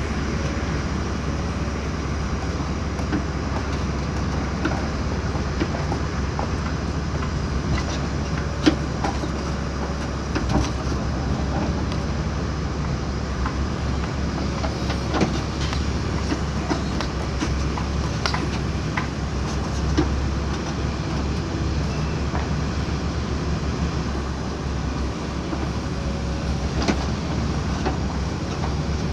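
Backhoe loader's diesel engine running steadily at work, with scattered short clanks and knocks.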